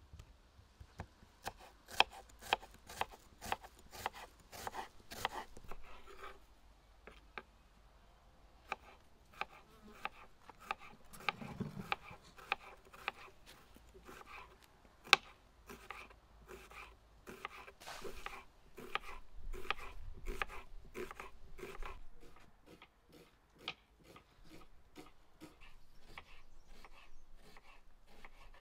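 Kitchen knife slicing onions on a wooden cutting board: a run of sharp cuts, each stroke knocking on the board. The cutting pauses briefly a few seconds in, then picks up again at a quicker pace.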